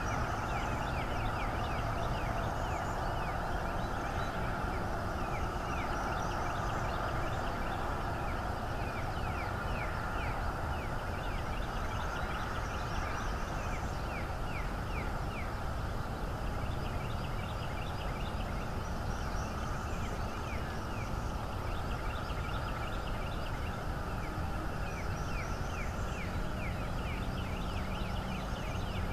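Bald eagles calling in their high chattering series: runs of quick, short, falling chirps, repeated every few seconds, over a steady low rumble.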